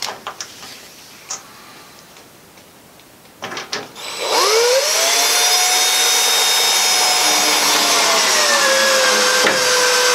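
Cordless drill-driver driving a screw through a foam panel into a wooden batten: the motor spins up with a quick rising whine about four seconds in, runs steadily, then drops in pitch near the end as the screw tightens. Before it, a few light clicks of handling the screw.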